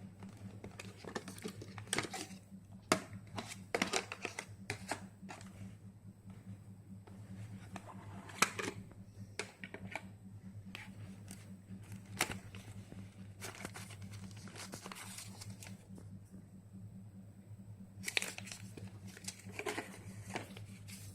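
Retail packaging being handled and opened: irregular crinkling, rustling and light clicks of plastic and cardboard, over a steady low hum.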